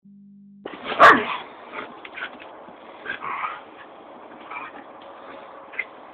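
Border collies play-fighting: one loud bark about a second in, followed by several shorter, quieter yips and whimpers as they wrestle.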